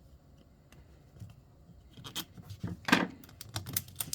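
Plastic Miniverse capsule ball handled and pried at while it won't open: short clicks and scrapes starting about two seconds in, with one sharp click near three seconds.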